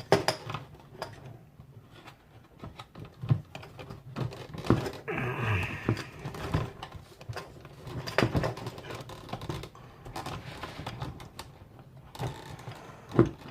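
Irregular clicks, taps and knocks of hard parts being handled as a fuel pump and sending unit are worked down into a car's gas tank, over a low steady hum.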